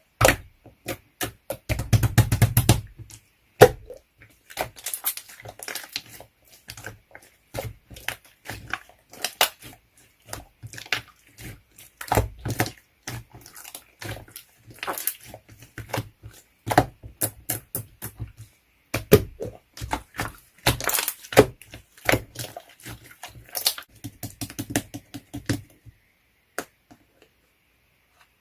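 Irregular close clicks, taps and knocks, with a denser crackling spell about two seconds in; they stop a couple of seconds before the end.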